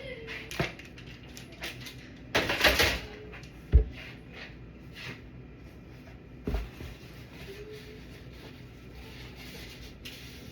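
Household knocks and clatter: scattered clicks, a rough scraping rustle about two and a half seconds in, and two sharp thumps, one near four seconds and one near six and a half.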